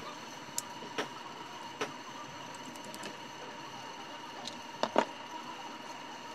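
Scattered clicks and light knocks from hands handling a blender's plastic push-button switch and housing, five or six in all, the loudest pair about five seconds in, over a steady faint high background tone.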